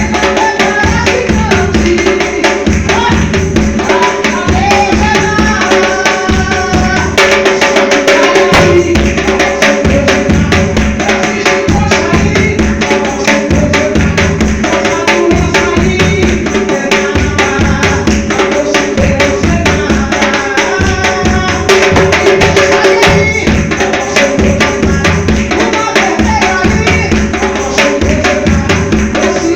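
Music driven by timbal hand drums with rapid strokes and a marcação bass drum marking the beat, over a melodic backing.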